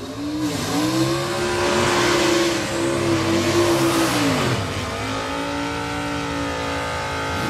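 Remote-control toy car's electric motor and gears whining as it drives, the pitch dipping and rising again and again as it slows and speeds up, then settling steadier and lower for the last few seconds.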